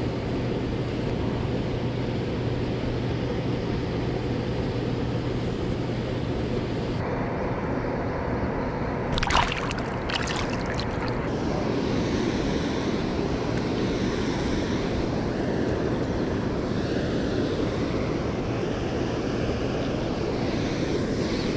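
Steady rush of river water with wind buffeting the microphone, and a brief splash about nine seconds in as a striped bass is let go back into the water.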